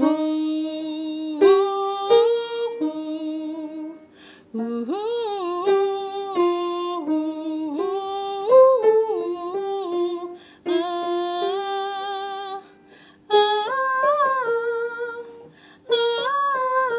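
A woman singing a soprano harmony line without words, hummed or on an open vowel, in held notes grouped into short phrases with brief breaks. A steady lower note sounds underneath much of the time.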